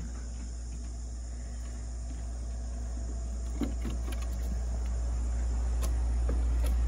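A steady low hum that grows gradually louder, with a few faint knocks of footsteps on wooden steps and floor.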